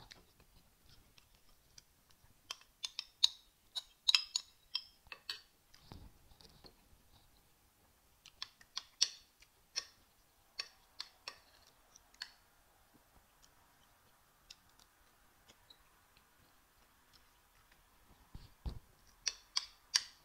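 Metal spoon clinking and scraping against a ceramic plate in three bursts of quick sharp clicks as rice and beans are scooped up, with a couple of dull low thumps in between.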